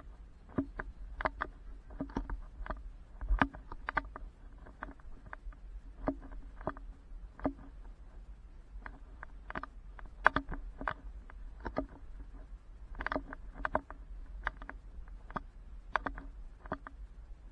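Footsteps of someone walking on sand while carrying the camera: irregular sharp clicks and light crunches about twice a second, over a steady low rumble.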